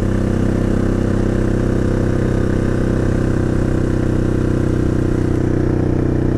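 Can-Am Outlander XMR 1000 ATV's V-twin engine running at steady, unchanging revs while riding, the machine in limp mode.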